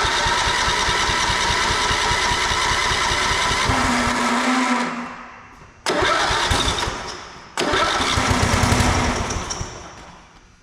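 1985 John Deere 111 riding mower's engine catching and running for a few seconds at a time, then dying away; it starts up three times. It keeps stalling from a fuel issue.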